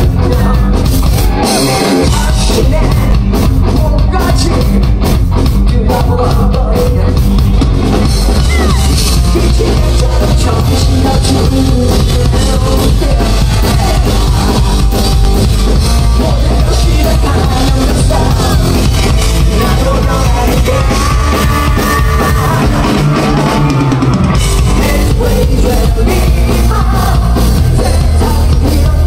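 Live rock band playing loud, with electric guitars and a drum kit, and a singer singing into a microphone over it.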